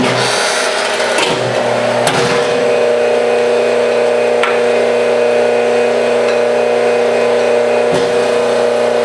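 Hydraulic forging press running with a steady hum from its pump and motor. A few short knocks of steel tooling are heard over it, near the start and about two and four seconds in.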